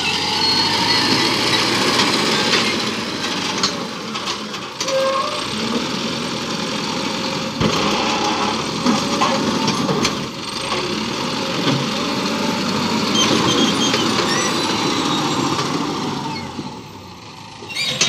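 JCB 3DX backhoe loader's four-cylinder diesel engine running hard as the loader drives and works its loaded front bucket, with brief knocks about halfway through. The sound drops in loudness shortly before the end.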